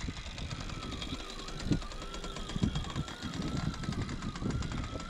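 Electric sailboat winch hoisting a person up the mast: a wavering motor whine with fast ticking, under a low rumble of wind on the microphone.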